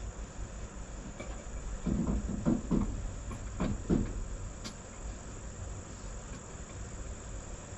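Crickets chirping steadily, with a few dull knocks about two to four seconds in.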